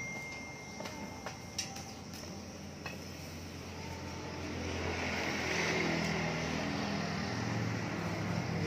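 A steady motor hum with a few short clicks early on. The hum grows louder about halfway through.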